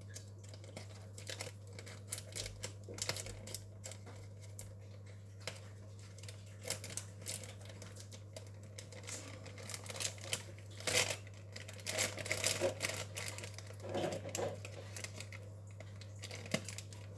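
Cake-mix packaging being handled, with irregular clicks and crinkling that get busier about two-thirds of the way through, over a low steady hum.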